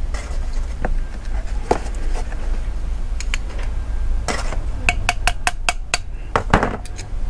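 Steel hand tools knocking and clinking against a brass-and-alloy carburettor as a screwdriver, turned with an open-ended spanner, works a fitting loose. A quick run of about six sharp, ringing metallic clinks comes a little past halfway.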